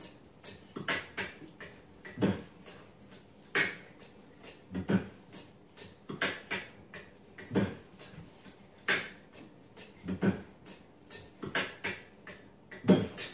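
Beatbox beat played from a Google Home smart speaker: a steady rhythm with a heavy hit about every second and a third and lighter clicks and taps between.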